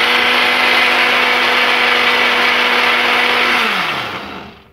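Electric jug blender's motor running steadily, beating eggs and sugar. About three and a half seconds in it is switched off, and its hum falls in pitch as it spins down.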